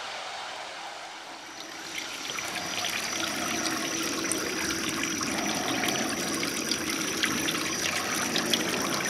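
Three water jets from a small electric pump splashing and trickling into a funnel. The splashing builds up about two seconds in, then runs steadily.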